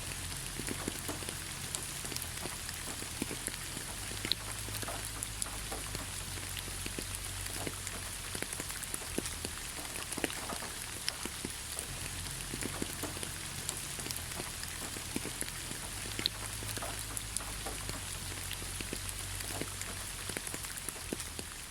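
Steady rain falling on leaves, a constant hiss with many individual drops tapping close by.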